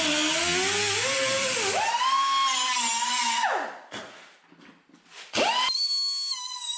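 Air-powered cut-off wheel cutting through the sheet-metal tail light panel of a 1965 Mustang, its whine dipping and recovering in pitch as it bites into the steel. About three and a half seconds in it is released and winds down. After a short pause it is triggered again about five seconds in and runs free at a steady, higher whine.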